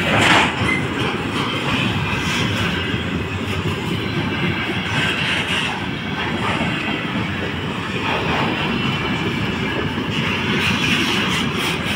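Container flatcars of a freight train rolling past close by: a steady noise of steel wheels running on the rails.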